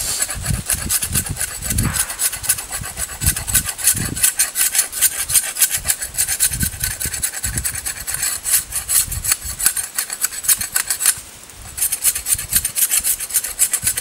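Knife blade scraping down a dead stick, taken to be poplar, in quick repeated strokes, shaving off knots and notches to smooth a fire-making hand-drill spindle. The scraping breaks off briefly about eleven seconds in, then resumes.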